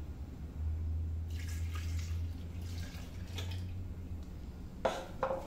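Milk poured from a measuring cup into a blender jar, a steady splashing pour lasting a couple of seconds. Two short clunks follow near the end.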